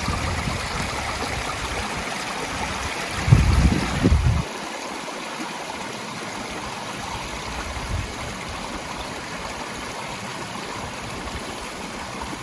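Stream running steadily, with a brief low rumble on the microphone about three to four seconds in.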